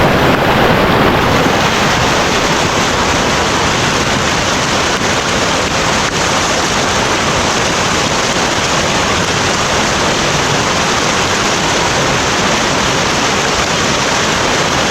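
Steady, loud rush of water, starting abruptly and continuing unchanged.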